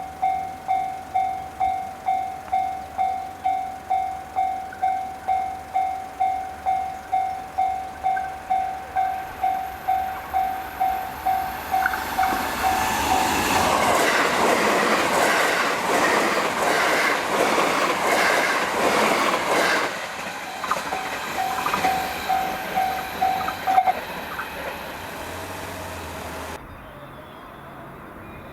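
A Japanese level-crossing warning bell rings steadily at about two dings a second. A JR Hanwa Line train then passes through the crossing at high speed, its wheels clattering over the rail joints for several seconds and drowning the bell. After the train has gone the bell rings on briefly and then stops, as the crossing clears.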